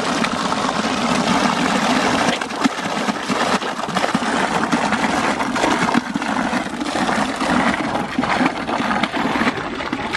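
Water pouring steadily from a spout and splashing into a shallow concrete channel, a continuous rushing splash.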